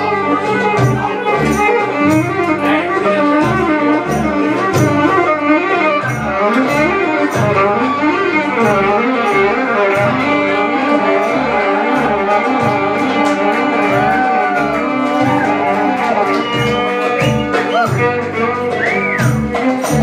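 Live band music: a violin playing a winding, gliding melody over a pulsing electric bass guitar line, with a steady beat.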